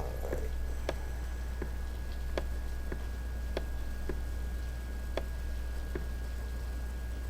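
Computer mouse clicking, sharp single clicks scattered about one every half second to a second, over a steady low electrical hum and a faint high whine.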